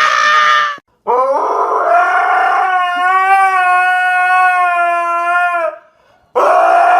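A dog howling: one long, steady howl of about four and a half seconds, with a shorter cry just before it and another near the end.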